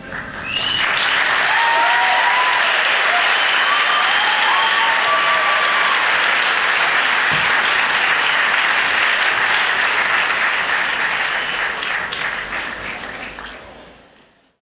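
Audience applauding loudly, with a few cheers over the clapping early on; the applause fades out near the end.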